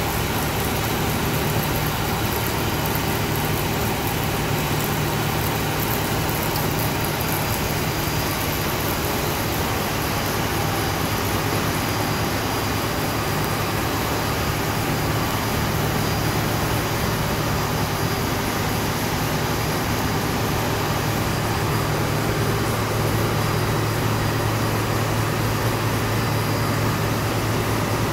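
Belt-driven electric motors of a recycling machine running steadily, with a constant low hum under an even mechanical whir.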